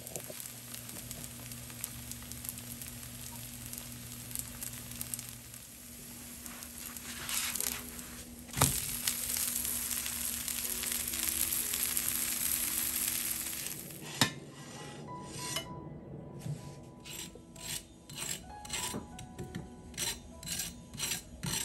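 Scallion pancake frying in oil in a nonstick pan, sizzling steadily, with a spatula scraping and pressing and one sharp knock about 8 s in. After a click about 14 s in, the sizzle gives way to a fork tapping and scratching the crisp cooked pancake in a run of short, separate strokes.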